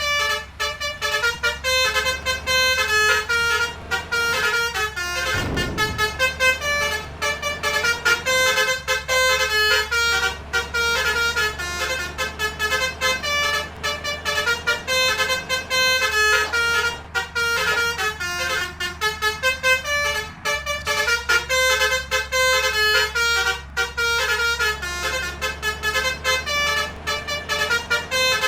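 Telolet multi-tone trumpet horns playing a continuous run of short, quick notes that jump between pitches like a tune, over a steady low engine hum.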